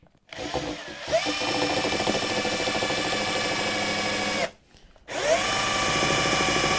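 Cordless drill working into wood in two long runs, each starting with a rising whine and then holding a steady pitch. The first runs for about four seconds, and the second starts about five seconds in.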